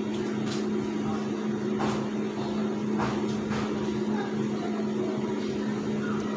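A steady machine hum with one constant low tone, and a few faint clicks over it.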